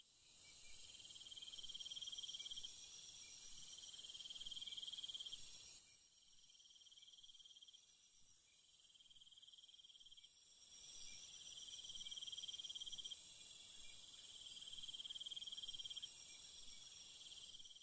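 A chorus of insects trilling at a high pitch. One strand comes and goes in phrases of about two seconds over a steady higher hiss.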